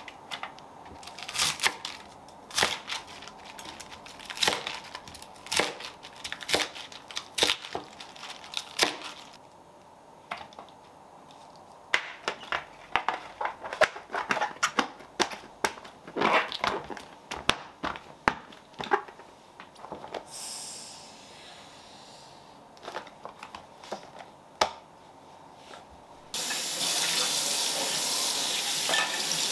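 Light plastic clicks and taps from cut greens being laid into a clear plastic food-storage container and its plastic lid being fitted and pressed down. About 26 s in, a kitchen tap is turned on and water runs steadily into the sink.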